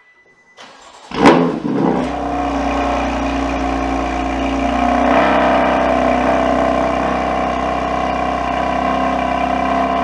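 BMW M3 Competition's S55 twin-turbo straight-six starting: a brief crank, then it catches about a second in with a loud flare of revs and settles into a steady idle.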